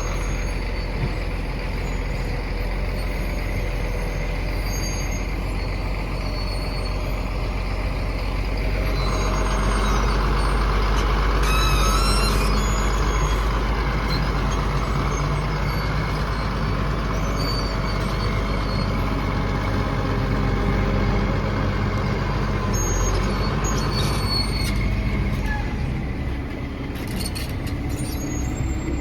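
Engine of a heavy construction machine running steadily with a deep rumble, growing louder and more hissing for a stretch in the middle.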